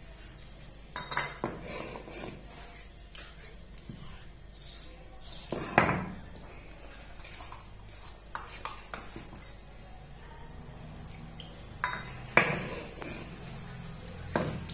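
A handful of sharp clinks and knocks from a steel bowl and the stone grinding slab and roller (sil-batta), with softer scraping of hands working wet chilli paste off the stone.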